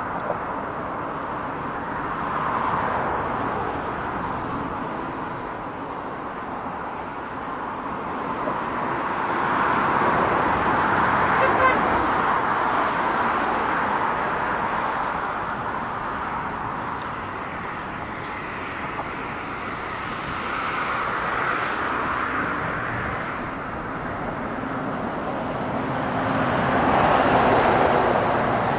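Road traffic noise: a steady hiss of passing vehicles that swells and fades every several seconds, loudest about ten seconds in and near the end.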